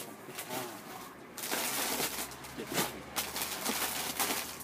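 Plastic wrappers of packaged bread rolls rustling and crinkling as they are handled by the armful in a plastic crate. The rustle starts about a second and a half in.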